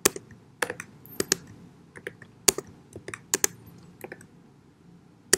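Computer keyboard being typed on slowly, one key at a time: separate, irregularly spaced keystroke clicks, some in quick pairs as a letter and then the Return key are pressed.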